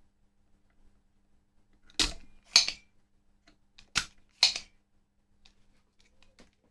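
Four sharp clicks from small hand tools at a workbench, in two pairs about two seconds apart, with the clicks in each pair about half a second apart, followed by a few faint light ticks.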